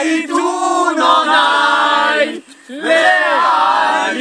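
A group of mostly male voices singing together without accompaniment, in a shouted, chant-like way. The singing breaks briefly for breath about two and a half seconds in.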